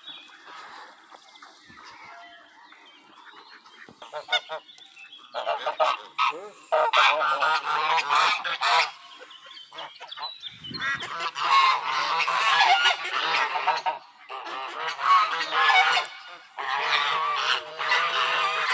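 A group of geese honking loudly, starting about five seconds in and going on in repeated bouts of overlapping calls with short pauses between them.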